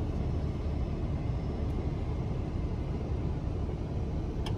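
Steady low rumble of a semi truck's engine idling, heard inside the cab. A single faint click comes near the end.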